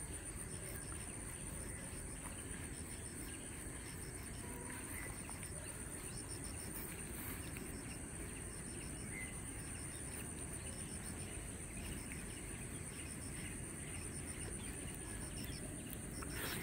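Insects droning steadily in a high shrill note, with a faster pulsing chirp beneath it, over a low rumbling background noise.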